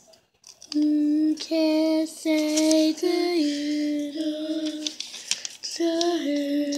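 A child singing a wordless tune in a string of held, even notes that step up and down a little, with a short break just after the middle.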